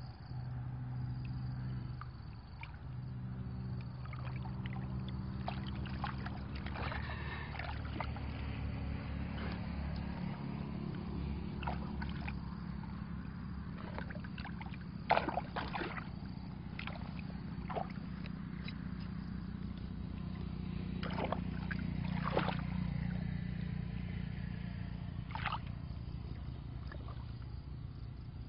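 Muddy water sloshing and splashing as a bamboo plunge basket is worked into a shallow ditch and hands grope inside it. There are a few short sharp splashes or knocks, the loudest about halfway through, over a steady low engine-like hum.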